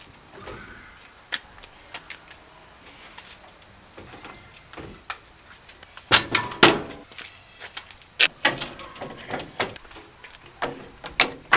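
Metal roller pipes being slid into place through the wooden crossbars of a pickup truck rack, knocking and clanking against the wood. The knocks are scattered, with the loudest two about six seconds in and a run of smaller knocks after.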